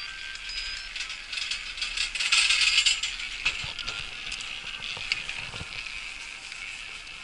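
Chairlift running over a lift tower's sheave wheels: a mechanical rattling clatter that is loudest about two to three seconds in, followed by a few sharp clicks.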